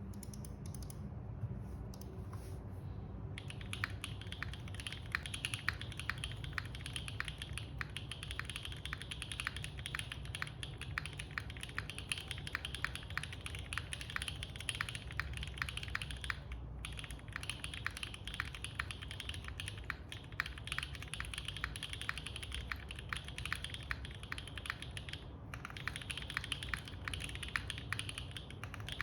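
Typing on a gasket-mounted Moment mechanical keyboard with lubed Owlab Tungsten switches on a polypropylene plate and GMK keycaps: a few scattered keystrokes, then steady fast typing from about three and a half seconds in, with two brief pauses.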